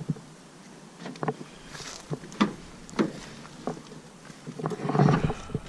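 Scattered clicks and knocks as the door of a Ford F-150 pickup is opened and the camera is carried into the cab, ending in a louder rustling rumble of handling noise about five seconds in.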